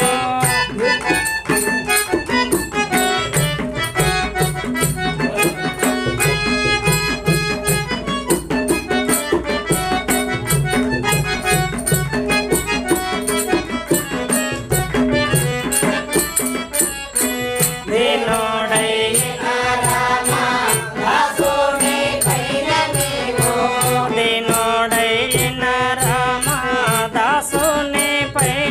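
Telugu devotional bhajan music, a Sri Rama kirtana in raga Gowlipantu: a held reed-like instrumental melody over a steady beat of small hand cymbals and drum strokes. About 18 s in, a melody with sliding, ornamented notes takes over above the same beat.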